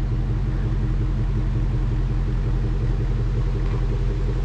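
Jeep engine running with a steady, even low hum.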